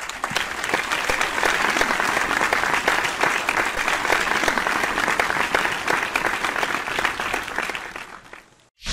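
Audience applauding, a dense steady patter of many hands clapping that fades away near the end and is cut off.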